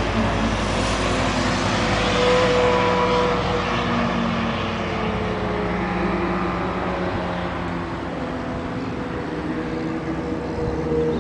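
Motor vehicle engine running steadily, with several tones that drift slowly in pitch over a general rumble; the deepest rumble eases about eight seconds in.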